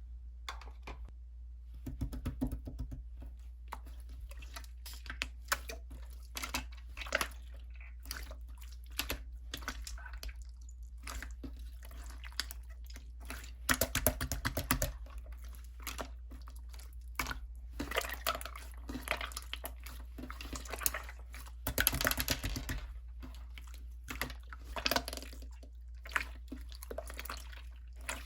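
Slime being squished and kneaded by hand: irregular sticky clicks, pops and crackles, with denser bursts of crackling about halfway through and again about three-quarters of the way in, over a steady low hum.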